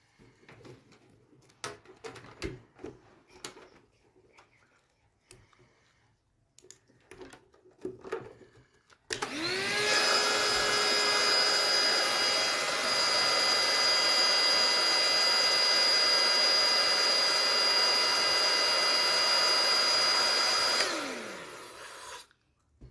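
Electric balloon pump inflating a latex balloon: its motor starts about nine seconds in with a rising whine, runs steadily and loud for about eleven seconds, then winds down. Before it, light rubbing and clicking of latex balloons being handled.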